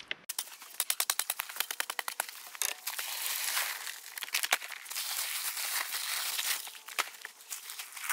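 A 60 lb paper bag of dry concrete mix being crinkled and torn open in rapid crackles for the first few seconds. The powder then pours out in a steady hiss, and more paper rustles near the end.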